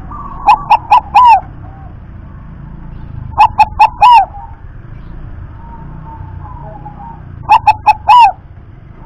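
Zebra dove (perkutut) cooing: three phrases a few seconds apart, each three quick short notes followed by a longer, drawn-out coo.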